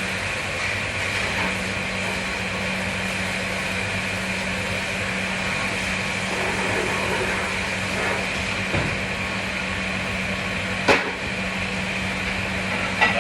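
Steady hum of kitchen machinery in a dishwashing area, with one sharp clink of ware about eleven seconds in.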